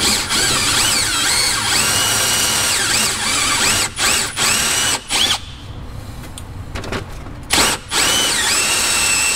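Cordless drill with a step drill bit boring through a plastic grille, run in bursts. The motor's pitch rises and falls with the trigger, it stops briefly several times, and it runs quieter for a couple of seconds past the middle.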